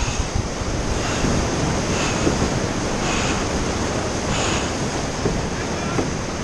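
Rushing white water around a rowed surf boat, with wind buffeting the microphone. A soft hiss recurs about once every second and a bit, in time with the crew's oar strokes.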